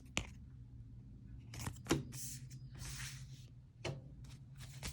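Pokémon trading cards being handled, soft swishes of cards sliding against one another with three light taps.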